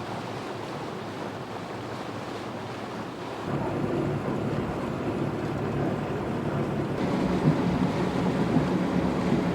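Wind on the microphone and water rushing along the hull of a sailboat under way, over a low steady hum; it grows a little louder about three and a half seconds in.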